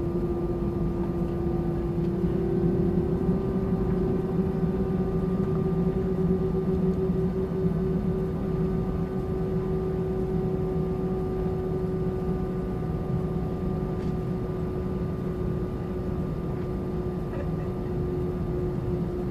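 Airbus A320-200 jet engines running steadily: a low hum under a steady whine that steps up slightly about two seconds in, then holds.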